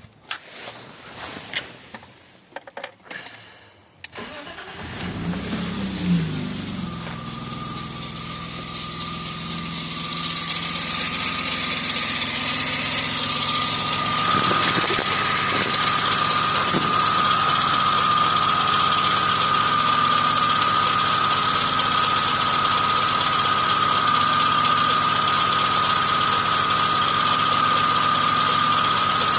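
A few clicks, then a BMW E34's engine starts about four seconds in and settles into a steady idle. A steady high-pitched whistle comes in a few seconds later and grows louder: the alternator belt squealing, which the owner puts down to the belt itself, a new but Chinese-made one that needs replacing.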